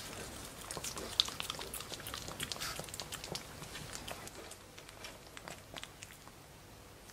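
Pekingese puppy licking a Churu lickable treat and smacking its lips: quick wet tongue clicks and smacks, thickest over the first few seconds, with one sharp smack about a second in, thinning out toward the end.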